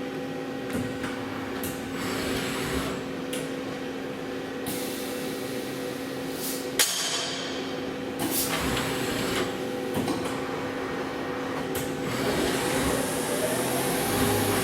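Hurco TM6 CNC slant-bed lathe running through a bar-feed cycle: a steady hum with clicks and clunks from the mechanism, and one sharp metallic clang about seven seconds in that rings on, the bar stock striking its stop plate. Near the end a hiss comes up and a whine glides up and back down.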